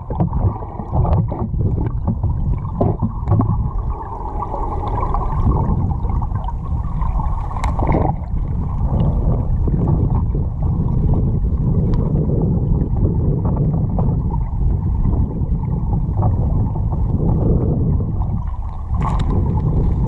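Underwater sound of a river current heard through a waterproof camera housing: a muffled, steady low rush, with a few sharp clicks.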